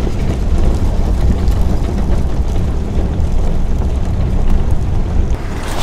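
Vehicle driving noise heard inside the cab: a steady low rumble of engine and tyres on a gravel road, cutting off abruptly shortly before the end.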